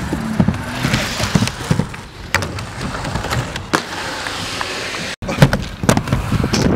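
Inline skate wheels rolling on concrete with repeated sharp clacks and knocks as the skates hit the ground and ramp edges. The sound drops out for an instant about five seconds in.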